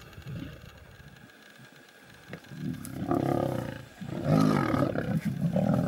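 Lionesses growling at a crocodile that has grabbed their kill, in two loud, rough outbursts that start about halfway in, with a brief break between them.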